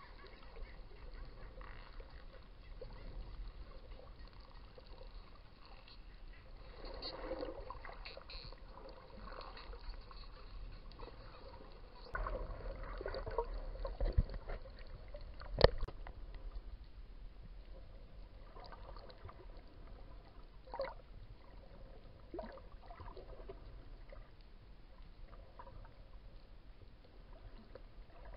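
Underwater water noise recorded by a snorkeler's camera: a steady rushing and swishing of water, louder at times, with a few scattered clicks and one sharp knock about halfway through.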